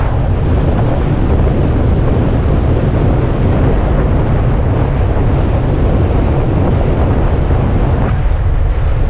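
Wind buffeting the microphone over a steady rush of water aboard a boat, a loud, even noise heaviest in the low end.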